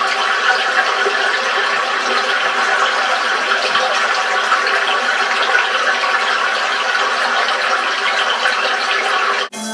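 Steady rush of running water from a rocky stream, cutting off abruptly near the end.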